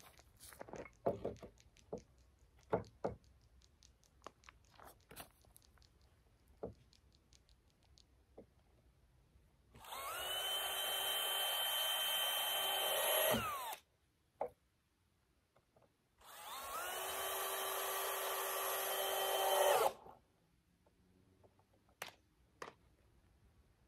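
Cordless drill run twice, about three and a half seconds each time, with a steady motor whine that speeds up as it starts and cuts off suddenly. Before the two runs come scattered light taps and knocks of handling.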